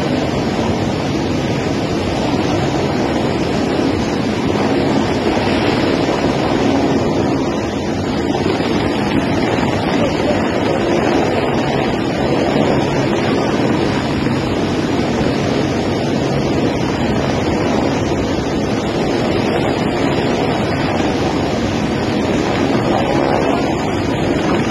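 Light helicopter running steadily as it hovers low over a river, its rotor and engine noise blended with the loud rush of the fast-flowing water below.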